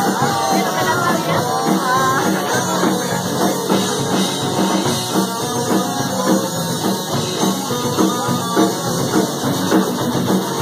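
Oi! punk band playing live, with electric guitar and drum kit in a loud, dense mix. It is recorded thin, with the deep bass missing.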